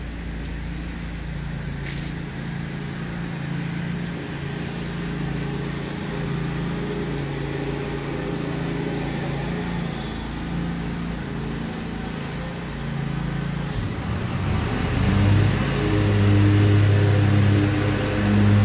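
An engine running with a steady low hum, which grows louder and shifts pitch from about fourteen seconds in.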